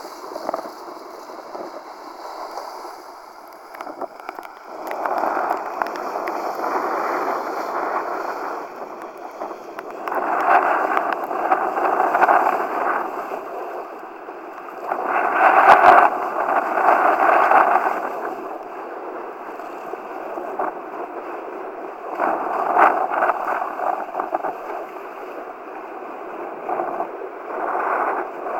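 Water rushing and splashing past a kiteboard planing over choppy water in strong wind, swelling and easing in surges every few seconds, with a sharp knock about halfway through.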